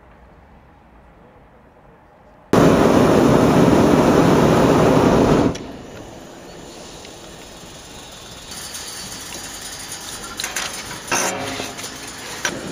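Hot-air balloon's propane burner firing in one blast of about three seconds, a loud roar that starts and cuts off suddenly. Before it there is a quiet stretch; after it a lower steady rush with a few knocks near the end.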